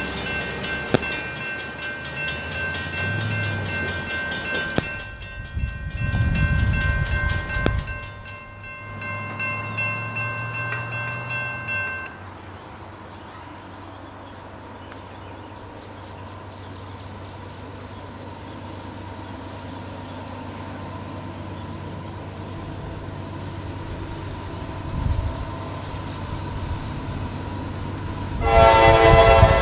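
Quiet lineside ambience with some passing road traffic, then near the end a freight locomotive's air horn starts blowing loudly, sounding a chord of several tones as the CSX train approaches the crossing.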